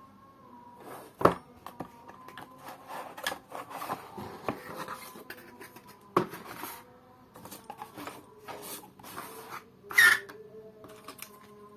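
Hands handling a mechanical keyboard and its packaging: irregular clicks, taps and rubbing, with sharper knocks about a second in, about six seconds in and near the end.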